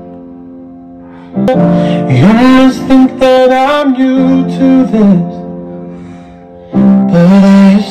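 A slow pop ballad playing: held chords with a voice singing over them. The singing pauses for a while in the middle and comes back louder near the end.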